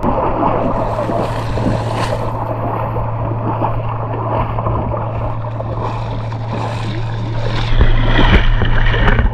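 Seawater splashing and sloshing as people wade ashore through the shallows, over a steady low hum; the splashing grows louder near the end.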